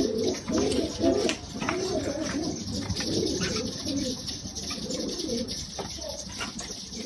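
Domestic pigeons cooing in a loft, with repeated low coos one after another.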